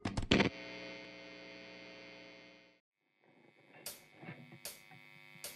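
Electric guitar signal chain through a pedal before the song starts. A few sharp muted string hits are followed by a steady buzzing hum that dies away about three seconds in. After a brief silence, a high steady whine comes in with muted string clicks about twice a second.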